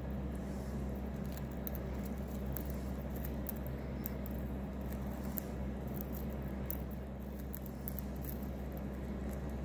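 Budgerigar husking millet seeds off a millet spray with its beak: quick, irregular little clicks and cracks, over a steady low hum.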